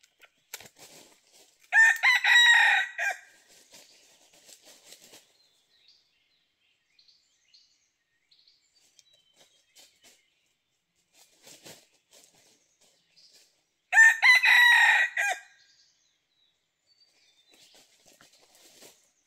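Red junglefowl rooster crowing twice, each crow short and loud, about twelve seconds apart. Faint scattered rustles come between the crows.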